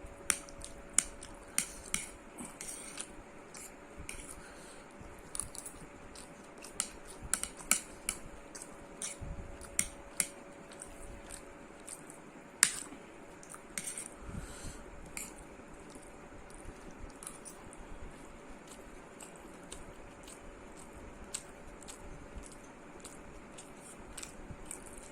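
Cutlery clinking and scraping against a plate while eating, in sharp irregular clicks, with some soft chewing between them.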